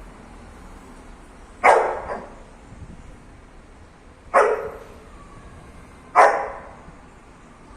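Husky giving three short, loud barks a couple of seconds apart, the first with a smaller follow-up yelp: play barking at a cat.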